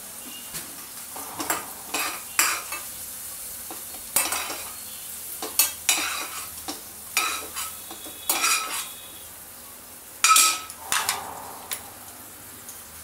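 A spoon scraping and clinking against a metal kadhai and a small glass bowl as thick chutney is scooped out: a dozen or so separate scrapes and knocks, the loudest a little after ten seconds in.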